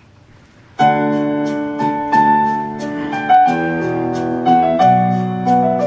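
Electronic keyboard playing slow sustained chords as a hymn introduction, starting about a second in, over a steady high ticking beat about three times a second.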